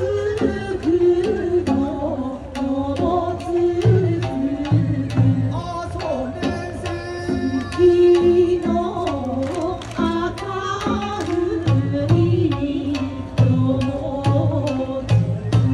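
Live bon odori dance music from a stage band: singing and melody over a steady drum beat, with heavy low drum hits in clusters.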